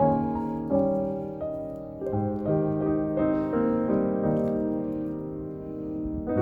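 Background music: slow piano, notes and chords sustained and fading.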